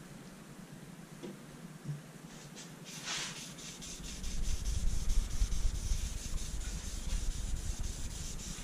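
A dye-soaked cloth rubbed back and forth over the bare maple top of a guitar body in quick strokes, wiping on a light blue dye base coat. A few faint clicks come first, and the rubbing starts and grows louder about four seconds in.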